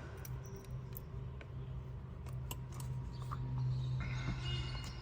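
Scattered small metallic clicks and taps from a Victorinox Ranger Grip 55 pocket knife's tools being handled, over a steady low hum.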